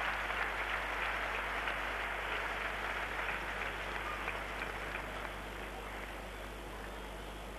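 Arena crowd applauding, a dense patter of clapping that slowly dies away.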